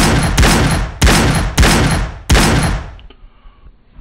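A rapid volley of gunshots, roughly one every half second to second, each ringing out after the crack. The shots stop about three seconds in.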